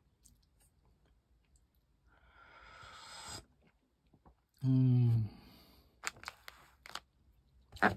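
A person sips hot cocoa from a mug with a slurp that swells louder, then lets out a short satisfied "ahh" that falls in pitch. A few sharp clicks and crinkles from the foil cocoa sachets follow.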